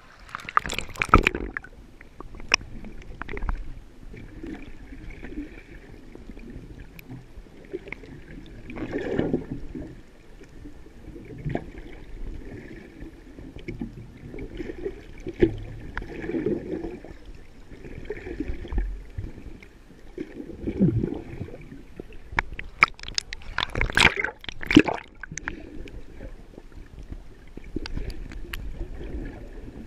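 Muffled underwater water noise heard through a camera housing, gurgling and sloshing in slow swells. Bursts of splashing come just after the start, as the camera breaks the surface, and again about two-thirds of the way through.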